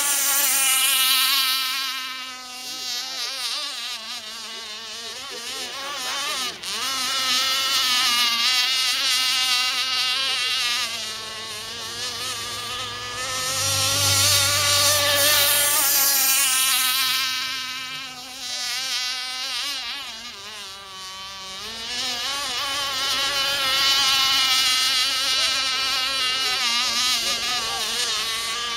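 Radio-controlled racing boat's engine buzzing at high revs, its pitch wavering and sliding, as it laps an oval course. It swells and fades several times, loudest near the start, around the middle and near the end.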